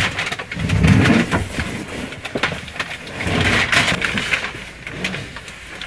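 Knocks, clicks and rustling as a truck cab's fold-away table is handled and set in place between the seats. A heavier thump comes about a second in, and a sliding, rustling noise a little past halfway.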